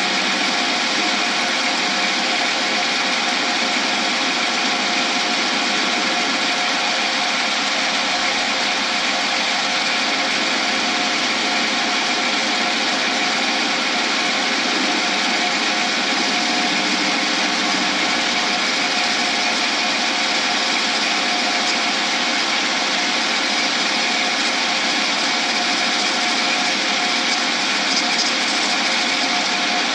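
Lathe running steadily with a constant hum while a cast acrylic blank is turned down to diameter, the cutting tool hissing against the spinning blank.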